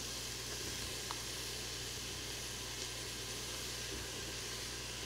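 Onions, garlic and sliced mushrooms sizzling steadily in hot coconut oil in an Instant Pot on its sauté setting.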